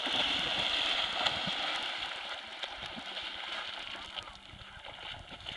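Water splashing as a man runs through the shallows and plunges into a lake, louder at first and fading as he swims off.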